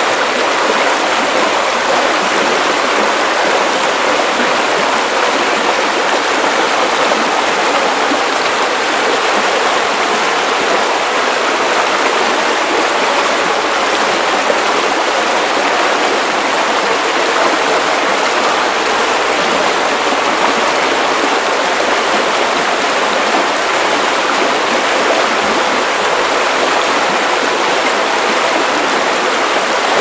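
A river rushing steadily: a dense, even wash of flowing water with no breaks.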